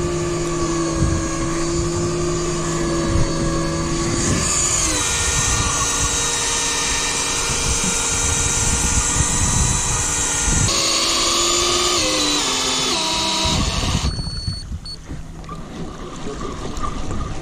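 Piscifun Kraken electric deep-drop reel's motor whining steadily as it winds line up from depth. Its pitch drops about four seconds in, then steps down several more times as the reel is slowed, and the motor stops about fourteen seconds in.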